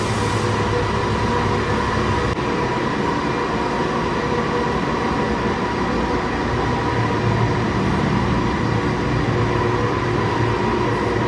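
Winding machinery of the San Francisco cable car powerhouse running: the large sheave wheels turning and the haul cables running through them, which never stop moving. It is a loud, steady mechanical noise with a few steady tones over it.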